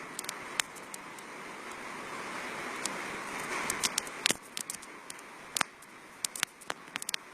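Typhoon wind rushing in gusts, swelling for the first four seconds and then dropping back, with many sharp clicks and knocks scattered through it.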